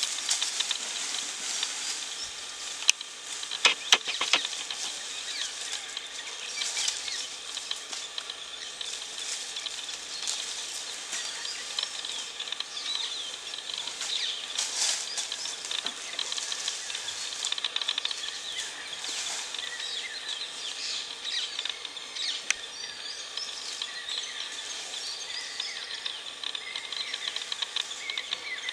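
Forest ambience: many small birds chirping over a steady high hiss, with a few sharp clicks or rustles about three to four seconds in.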